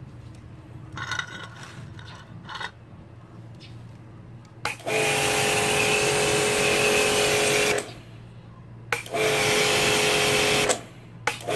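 Imperial high-pressure washer test-run. The motor hums steadily the whole time, and three times the gun is fired: a loud hissing spray with a steady pump whine, about three seconds long starting about five seconds in, then about two seconds, then a short burst near the end. Between bursts the motor keeps running instead of shutting off, which is the fault: it sprays hard but does not cut out.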